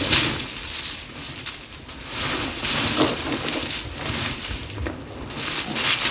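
Rough scuffling and crunching of paws and boots on loose gravel, coming in uneven bursts, as a Belgian Malinois holds a bite on a decoy in a bite suit and the two struggle.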